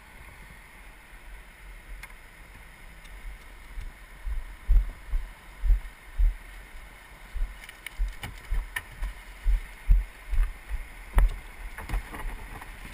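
Kayak on moving river water with wind buffeting the microphone: irregular low rumbling thumps from about four seconds in, and a few sharp clicks.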